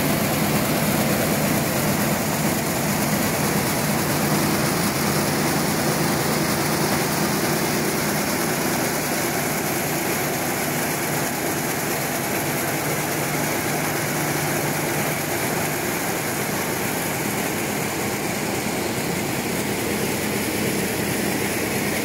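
Couscous extrusion production line running: a steady, even machine hum and hiss of motors and fans, unchanging in level.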